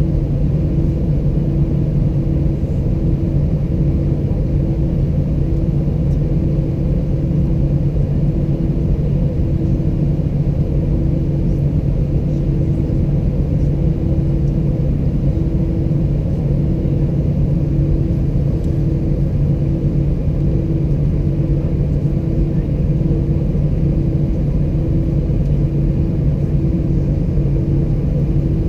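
Airbus A320-211 cabin noise from its CFM56 engines: a steady low hum with a constant deep tone and a higher tone that swells and fades in an even, repeating beat.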